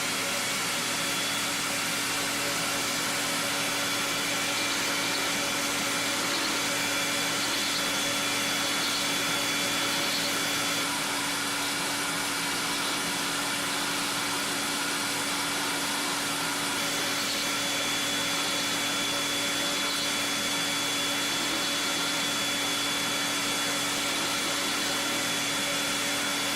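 An electric motor running steadily, with a low hum and a thin high whine that hold constant throughout.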